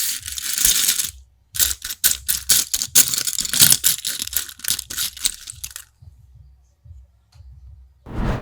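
Loose plastic LEGO bricks rattling and clicking against each other as they are handled: a dense rattle in the first second, then a quick run of sharp clicks, going quieter about six seconds in, with one short rattle near the end.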